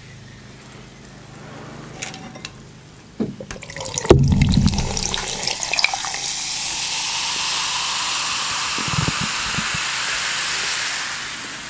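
A can of bubly mango sparkling water cracks open about four seconds in, then is poured into a tumbler, fizzing and splashing steadily for about six seconds before the pour stops near the end.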